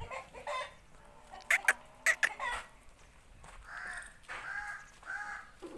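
Chickens calling: four short, harsh squawks in quick succession, then a run of drawn-out pitched calls.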